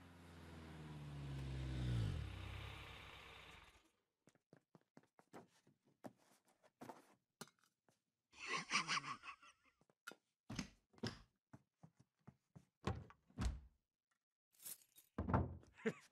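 A vehicle passing by, its engine note swelling and falling in pitch as it goes past about two seconds in, stopping near four seconds. After it comes a scattered string of soft knocks, taps and rustles.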